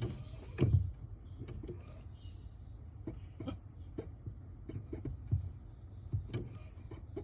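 A Honda Civic hybrid's brake pedal being pressed and released, making irregular clicks and dull knocks: the abnormal noise from the pedal.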